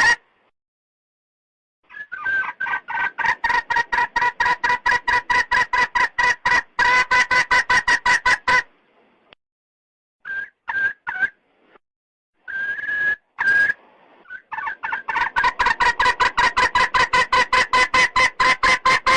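Red junglefowl hen calling a cock: runs of rapid, evenly spaced clucks, about seven a second, broken by a couple of pauses with a few short single notes between them.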